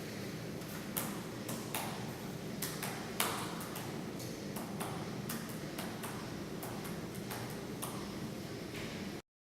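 Typing: single keys struck at an uneven, unhurried pace, about one or two clicks a second, over a steady low hum. The sound cuts off abruptly near the end.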